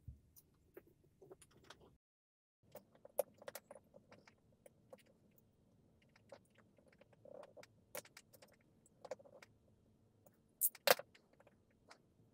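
Light, scattered clicks and taps of a plastic 12-gauge shotgun shell and tools being handled on a wooden jig and board, with a sharper double knock near the end.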